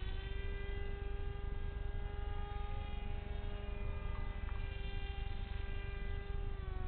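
Electric motor and 6x4 propeller of a scratch-built RC F-22 park jet whining steadily in flight over a low rumble; the pitch dips slightly near the end.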